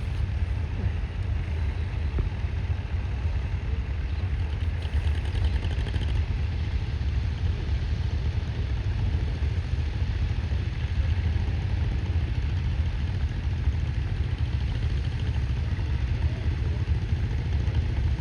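Tractor engine running steadily: a constant low rumble.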